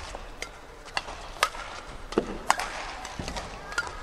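Badminton rally: a series of sharp racket strikes on the shuttlecock, roughly one every half second to a second, with a shoe squeak on the court floor about two seconds in.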